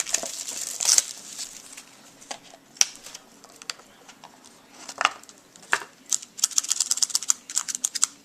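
Plastic wrapping on trading-card packaging being crinkled and torn open. A crackly rustle comes first, then a few sharp clicks, then a quick run of crinkling near the end.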